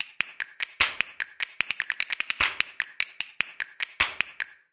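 Intro music made of quick, dry finger-snap-like clicks, about six a second in a busy, uneven rhythm, with no melody.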